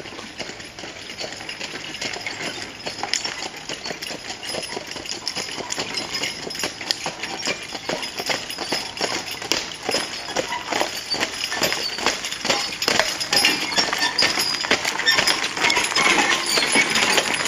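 Hoofbeats of a pair of draft horses on a gravel lane, an irregular run of crunching steps that grows steadily louder as the team pulling a cart approaches.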